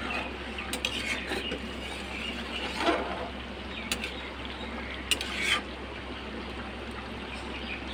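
Thick mustard fish curry simmering in an open metal kadai, with a spatula stirring it and now and then clicking and scraping against the pan. A steady low hum runs underneath.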